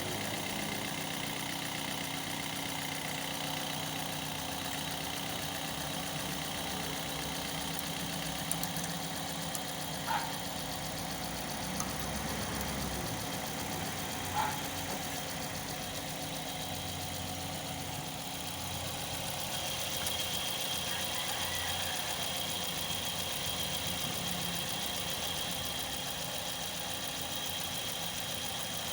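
Toyota Vios 2NZ-FE four-cylinder engine idling steadily soon after a cold start, with two short sharp sounds about 10 and 14 seconds in. The cold-start rattle from the VVT-i cam gear is stronger just before this stretch.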